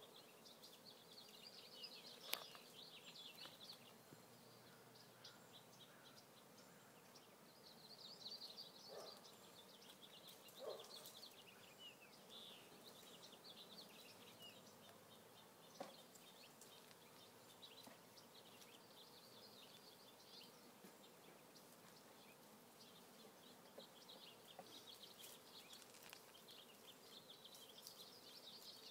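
Faint, steady buzzing of a honeybee colony just shaken into a new hive as the bees disperse. Clusters of high bird chirps come and go over it.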